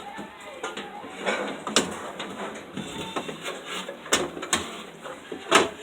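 Irregular knocks, clicks and clatter from the plastic evaporator cover inside a refrigerator's freezer being taken apart, with a sharp knock near the end.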